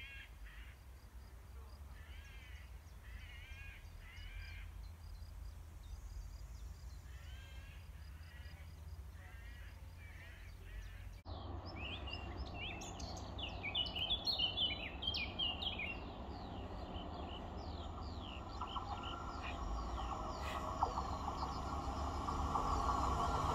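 Harsh cawing bird calls in short repeated series. After a sudden cut, small birds sing rapid chirps, and a train's steady mechanical hum builds and grows louder near the end as it approaches.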